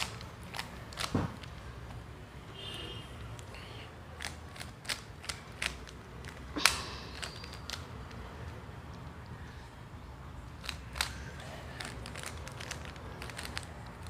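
Plastic Rubik's cube being twisted by hand, its layers clicking and clacking in irregular short bursts as the second layer is solved, over a low steady hum.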